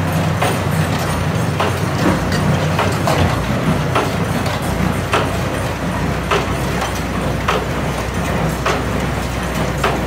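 New Holland 377 conventional small square baler running off a tractor, its mechanism clacking at a steady beat of about one clack every half second or so over the tractor engine's steady low hum.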